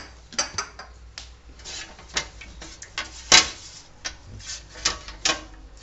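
A hand rubbing and smearing olive oil over a roasting tray: a string of short, irregular scrapes and knocks, the loudest about three and a half seconds in.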